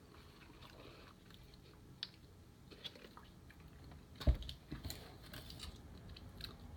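Faint close-up chewing of a sandwich, with small scattered mouth clicks. One sharp knock about four seconds in.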